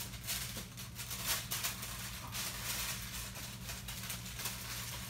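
Rustling and soft scraping as the statue's fabric apron is handled, in irregular bursts over a steady low electrical hum.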